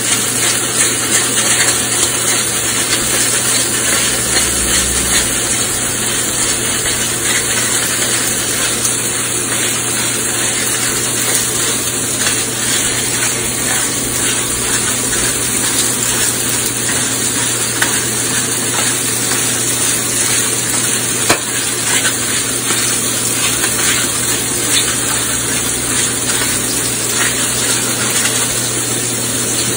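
Ribeye steaks sizzling steadily in a very hot cast iron pan, with small crackles throughout, over a low steady hum.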